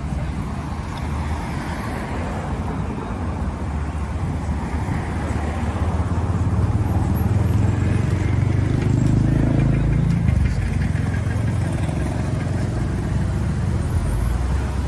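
Motor vehicle engine running with a low rumble that swells louder around the middle, peaking about nine seconds in, then eases off.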